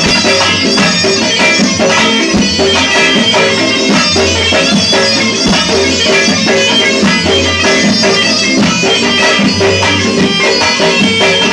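Instrumental Tunisian popular music: a reedy melody over repeating bass notes and a steady drum beat.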